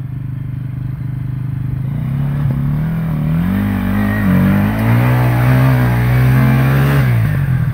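Enduro dirt bike engine revving hard as the bike fights for grip in deep mud on a climb. The revs rise about two seconds in, waver up and down, then drop off shortly before the end.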